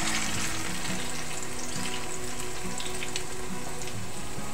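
Whole ripe plantains frying in oil in a pan over low heat: a steady sizzling hiss with scattered small pops.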